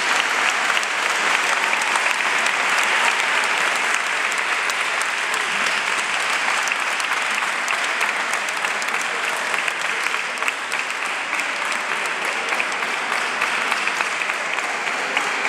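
Steady applause: many people clapping together, a dense even patter of hand claps that goes on without a break.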